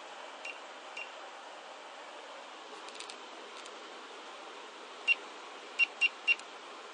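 Short high-pitched beeps from the microcontroller board's buzzer as its push buttons are pressed to set the synthesizer frequency. There are two faint beeps in the first second, then four louder ones near the end, the last three in quick succession, with a few faint clicks in between.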